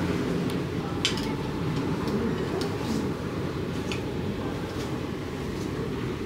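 Clothes hangers clicking a few times against a clothing rail as garments are flipped through and lifted off, over a steady low rumble.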